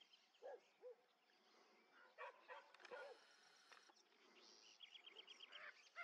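Faint, scattered harsh calls of Lear's macaws (indigo macaws) in flight, several separate squawks spread over the seconds. About five seconds in there is a quick run of short, high, thin notes.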